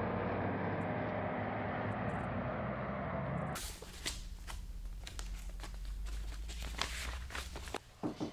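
Steady street traffic noise, then, after about three and a half seconds, papers rustling and flipping as files are leafed through at a desk, over a low steady hum. A sharp knock comes right at the end.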